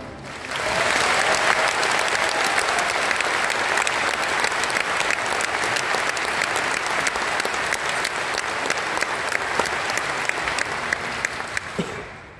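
Audience applauding after a marching band performance, the clapping rising quickly at the start, holding steady, and dying away near the end.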